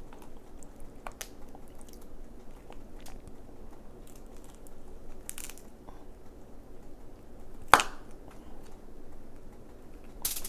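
Boiled crab shell being cracked and cut open, with scattered small crackles and clicks and one sharp, loud snap about three-quarters of the way through, along with close-up chewing.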